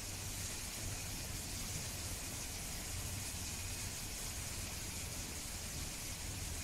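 Steady background hiss with a low hum beneath it, unchanging throughout, with no distinct chewing, knocks or calls standing out.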